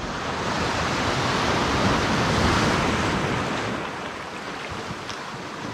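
A sea wave washing in on the rocks of the shore: a hiss that swells for about two seconds, then slowly dies away.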